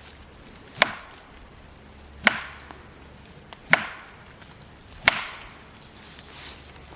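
Tree knocking: four loud, sharp wooden knocks struck on a tree trunk, evenly spaced about a second and a half apart, each with a short echoing tail. This is the 'tree knock' that Bigfoot hunters use as a signal call.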